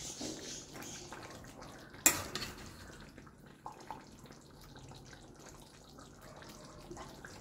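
A metal ladle stirring a thick curry gravy in a steel pan, with wet, sloppy stirring sounds. The ladle clinks sharply against the pan about two seconds in, and a couple of lighter taps follow a little later.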